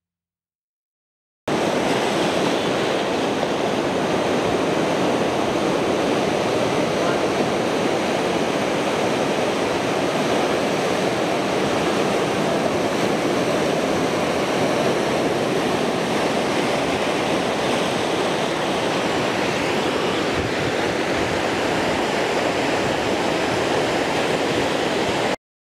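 A steady, even rushing noise, like running water, that starts suddenly about a second and a half in and cuts off abruptly near the end.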